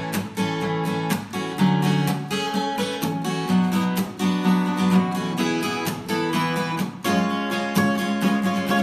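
Acoustic guitar strung with Road Dog strings, strummed in a steady rhythm of chords as an instrumental lead-in.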